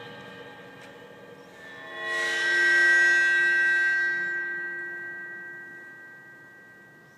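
Percussion ensemble in concert: a previous chord fades, then about two seconds in sustained high metallic ringing tones swell up and slowly die away.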